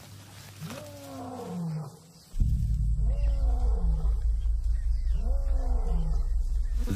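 Lion roaring: three long calls about two seconds apart, each rising and then falling in pitch. A loud, deep, steady rumble comes in suddenly about two and a half seconds in. The roar is a resident lion's territorial call, a signal for intruders to leave.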